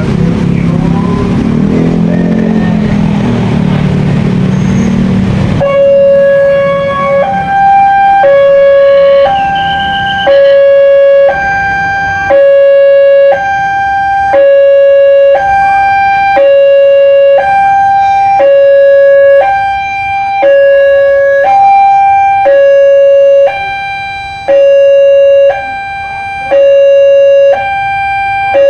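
A loud, noisy rumble that stops abruptly, then a railway level-crossing warning siren sounding a two-tone hi-lo wail, switching pitch about once a second. It is the signal that a train is approaching and the crossing is closing.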